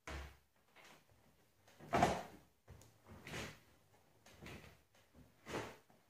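Washed laundry being pulled by hand out of the drum of a Samsung front-loading washing machine. A series of irregular rustles and soft knocks, the loudest about two seconds in.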